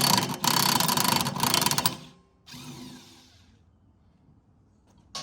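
Impact wrench running in reverse, loosening the top spindle nut of an Exmark zero-turn mower blade; it stops about two seconds in and a short, fainter whir follows. A sharp clank comes near the end.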